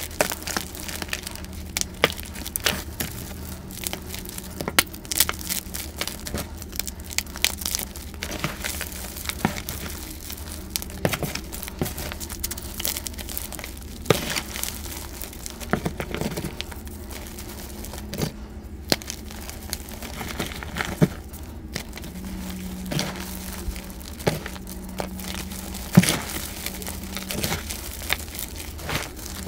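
Dyed gym chalk blocks and chalk reforms crushed and crumbled by hand: dense crunching, with many short, sharp cracks as pieces break and powder shifts.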